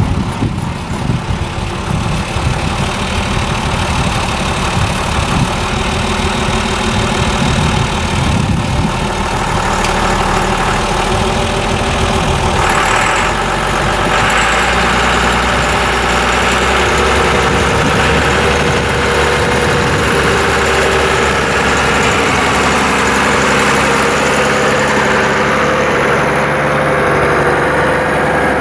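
Massey Ferguson 3650 tractor's diesel engine running steadily as the tractor drives across a meadow, its tone shifting about halfway through.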